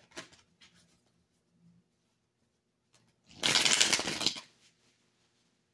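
A deck of tarot cards being shuffled: a few faint taps of card handling, then one loud run of rapid clicks lasting just over a second, a little past the middle.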